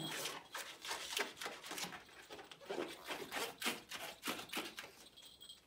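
Latex modelling balloon being twisted and stretched by hand, the rubber squeaking and rubbing in short, irregular strokes, several a second.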